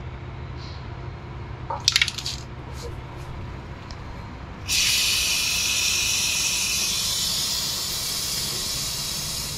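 Aerosol chain lubricant sprayed onto a motorcycle drive chain in one long continuous hiss, starting about five seconds in. A few light clicks come about two seconds in.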